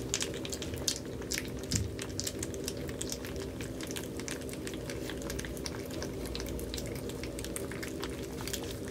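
Toy Aussiedoodle puppies, four weeks old, eating wet mash from stainless steel bowls: a continuous run of small wet smacking and lapping clicks. A steady low hum sits underneath.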